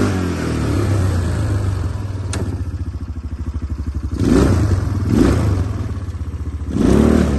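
2024 180 cc ATV engine idling with an even pulse, blipped three times in quick short revs from about four seconds in. There is a single sharp click a little over two seconds in.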